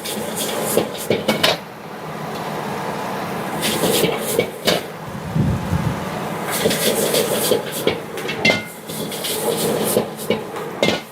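Metal spatula clanking and scraping in a wok during stir-frying, with irregular sharp knocks over a steady noisy hiss.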